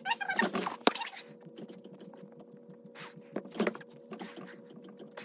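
Soft rustling and light thumps of a person doing push-ups on a carpeted floor, over a steady low hum.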